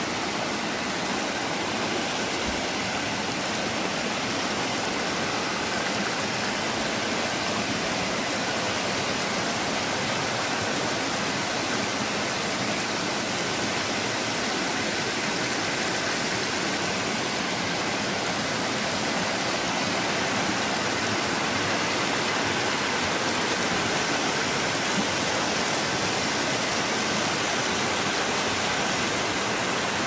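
Shallow mountain stream rushing steadily over rocks and small cascades.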